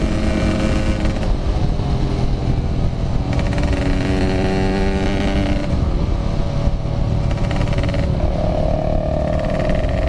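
Yamaha RX King 135cc two-stroke single-cylinder engine running under way, over a dense low rumble of wind and road. The engine note shifts up and down in steps several times as the throttle and gears change.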